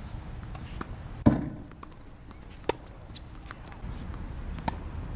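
A tennis ball struck hard about a second in, a sharp crack with a short ringing tail, followed by a few lighter ball taps and footsteps on the hard court.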